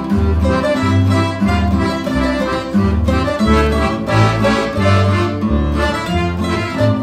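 Instrumental Sicilian folk tune from a small band: guitar and double bass keep a steady stepping bass line under a melody.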